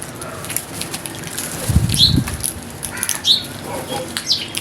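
Outdoor birds giving three short, high chirps, each sweeping down in pitch and spaced about a second apart. A low fluttering rumble comes about two seconds in.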